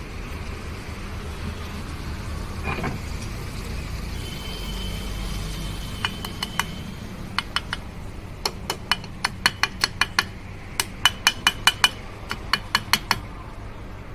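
Steady low rumble, then from about six seconds in quick groups of sharp metallic taps and clinks with a ringing note: a metal tool striking metal parts during scooter engine assembly.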